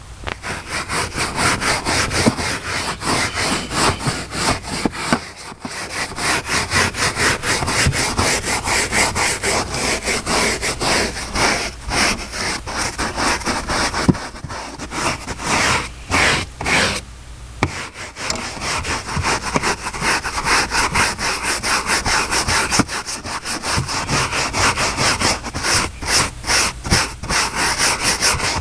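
Truck floor carpet being scrubbed by hand in rapid back-and-forth strokes, with a couple of brief pauses about halfway through.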